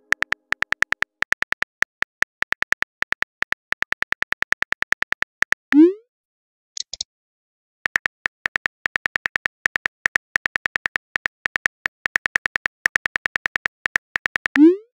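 Texting-app sound effects: a fast run of even keyboard typing clicks, then a rising swoop as the message is sent about six seconds in, and a short high double blip a second later. The typing clicks start again and end in a second send swoop near the end.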